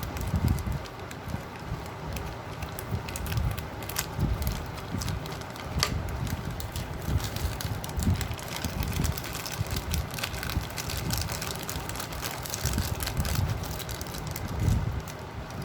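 Hands opening and rummaging through a small accessory pouch, with irregular rustling, small clicks and scrapes, and low bumps of handling.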